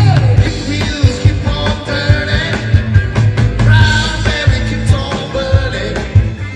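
A band playing a rock-style song, with bass and a steady drum beat.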